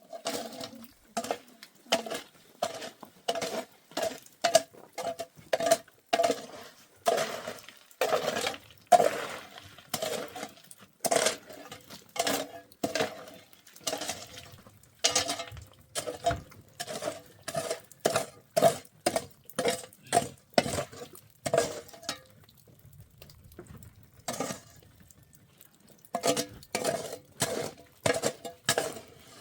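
A metal utensil striking a metal cooking pot over and over, about two ringing clinks a second, with a pause of a few seconds near the end before it starts again.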